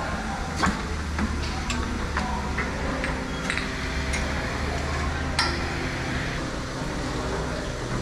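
Rotary milking parlour machinery running: a steady low hum with irregular metallic clicks and clanks from the platform's steel fittings and milking equipment.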